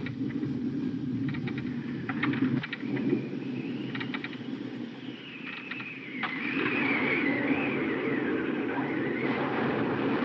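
Storm wind and rain: a steady rushing noise with clusters of rattling knocks in the first half, and from about six seconds in a wind whistle that wavers up and down.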